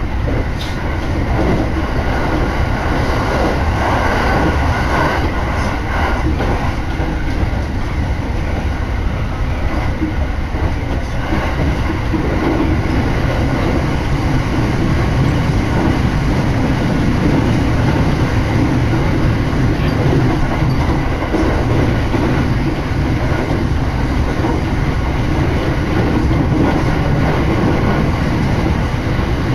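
Keiyō Line electric train running at speed on elevated track: a steady, loud rumble of wheels on rails, heard from on board.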